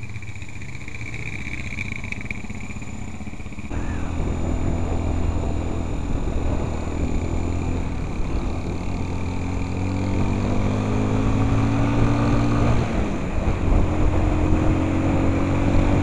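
Dirt bike engine idling, then pulling away louder and accelerating, its pitch climbing steadily, dropping once near the end as it shifts up, then climbing again.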